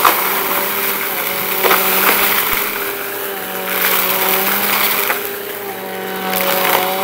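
Bissell compact upright vacuum running with a steady motor hum, crunching and rattling as it sucks up a pile of dry, crunchy debris and lint from carpet. The suction rush swells and eases as it is pushed in and pulled back, with sharp cracks of debris hitting the bin.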